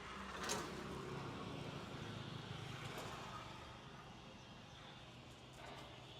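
A road vehicle passing: a low rumble that swells about a second in and fades away by about four seconds, with a sharp click just before it.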